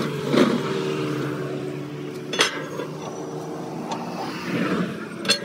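Two sharp metallic knocks from steel truck leaf spring leaves being handled and set down, with some scraping. A steady mechanical hum runs underneath.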